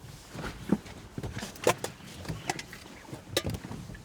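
A series of irregular clicks and knocks, the sharpest about a second and a half in and again near three and a half seconds, over a faint low rumble.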